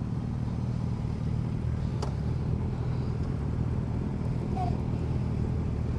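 Motorcycle engine running steadily at low revs, with one sharp click about two seconds in.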